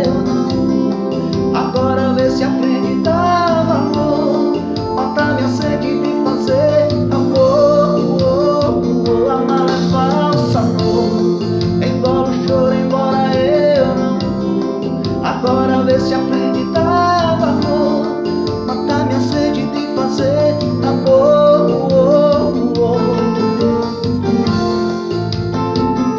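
A man singing a song while playing an electronic keyboard. Held keyboard chords sit under his wavering vocal melody, with a steady pulse in the low end.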